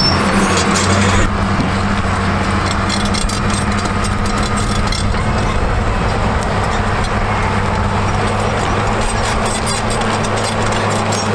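Case bulldozer's diesel engine running steadily with a constant low drone as the dozer works.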